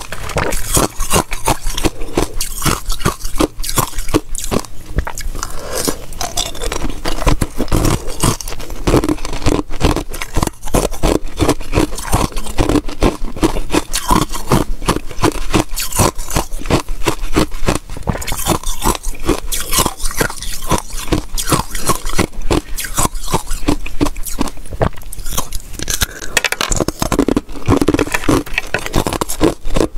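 Close-miked crunching and chewing of frozen basil-seed ice, with dense crackling bites and the ice cubes clicking and scraping as they are broken off the block by hand.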